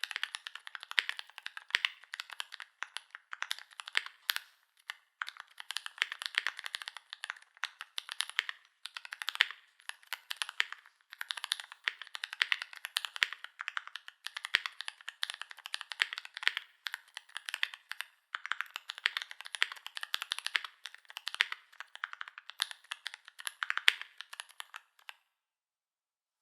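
Typing on a GMMK Pro mechanical keyboard with an FR4 plate, lubed Holy Panda tactile switches and GMK keycaps: rapid runs of keystrokes broken by short pauses every few seconds. The typing stops shortly before the end.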